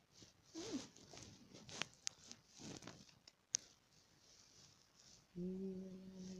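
Faint rustling and brushing as a cat's fur rubs against the phone while it is petted up close, with a few sharp clicks. About half a second in there is a short rising-and-falling call. Near the end a steady low hum sets in and holds for about a second.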